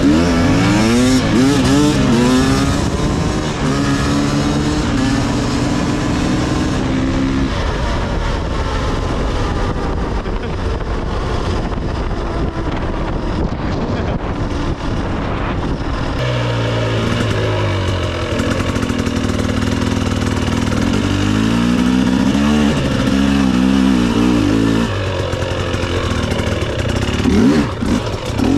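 Dirt bike engine heard from the rider's seat, its pitch climbing and dropping repeatedly as it accelerates and changes speed. Through a stretch in the middle a steady rushing noise covers most of the engine.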